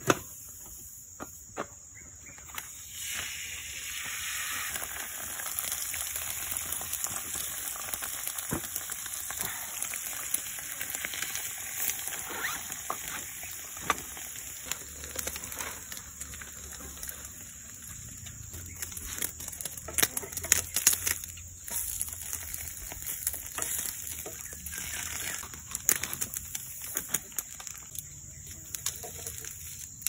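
French toast (egg-soaked bread) sizzling in a frying pan over a wood campfire, the sizzle starting a few seconds in, with scattered sharp crackles and clicks throughout.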